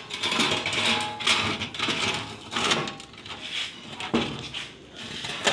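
Stainless steel rods and hinged arms of a folding towel rack clinking and sliding against each other and the steel channel frame as the rack is pushed flat, in irregular bursts of metallic clatter.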